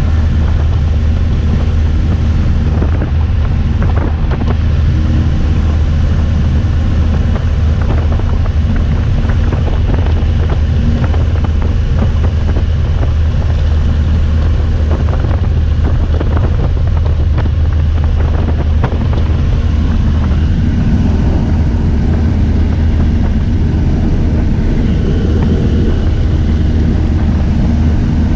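Single-engine light aircraft in flight, heard from inside the cabin: the engine's steady low drone under loud wind rush, with scattered short buffets of wind on the microphone.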